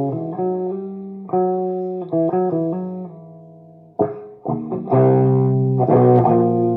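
Electric guitar played through a homemade guitar amplifier's clean channel: chords and short runs of notes, each struck sharply and left ringing.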